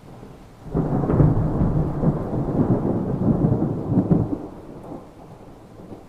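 A thunderclap: a sudden crack under a second in, then rumbling thunder that rolls on for about three and a half seconds and dies away, over a steady background of rain.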